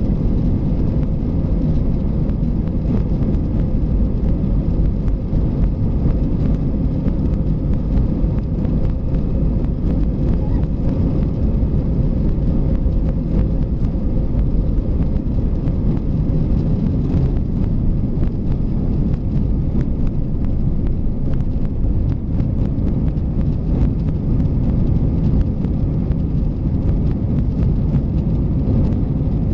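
Airbus A320 cabin noise during the takeoff roll and lift-off: the jet engines at takeoff thrust and a loud, steady low rumble, heard from inside the cabin.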